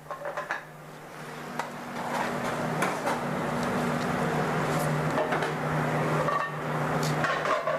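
White wine sizzling in a hot pan of browned rabbit and sautéed vegetables: a steady hiss that builds up over the first second or two and then holds, over a steady low hum.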